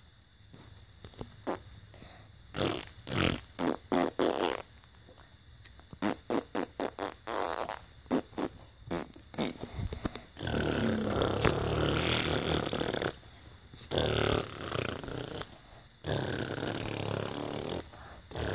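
Fart noises made by a person: first a quick run of short sputtering ones, then three longer drawn-out ones.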